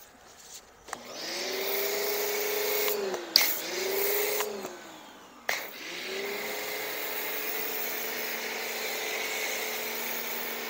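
Pressure washer with a foam cannon spraying soap: the motor whines up about a second in, under a hiss of spraying foam. It winds down and starts up again twice, around three and five and a half seconds in, with a sharp click at the first stop, then runs steadily.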